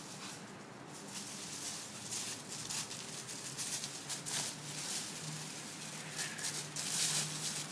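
Dry fallen leaves rustling and crunching under running feet, in quick irregular scuffs that are loudest about seven seconds in.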